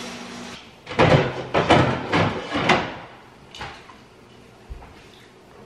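Household knocking and clatter: a quick run of loud knocks and bangs for about two seconds starting a second in, then a few fainter knocks, like doors, drawers or dishes being handled.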